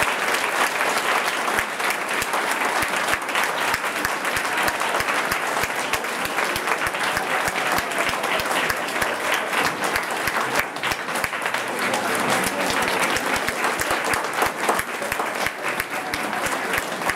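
Theatre audience applauding: steady, dense clapping from many hands.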